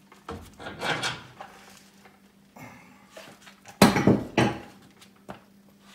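Metal clanks and scraping as a Chevy C10 upper control arm is worked off its frame mounting studs, with a few sharp knocks and the loudest clank about four seconds in.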